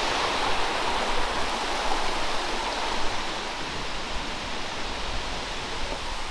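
Steady rushing of running water, an even hiss with no distinct events.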